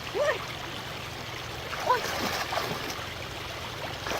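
Steady rush of flowing stream water, with two short voice-like calls, one just after the start and one near the middle.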